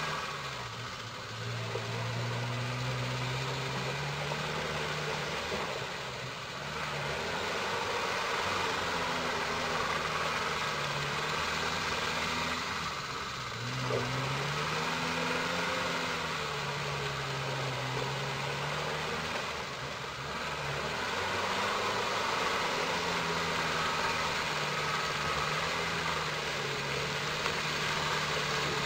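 Land Rover Defender TD4's four-cylinder turbodiesel working off-road, its revs rising and falling again and again under load, with a brief drop in revs every several seconds.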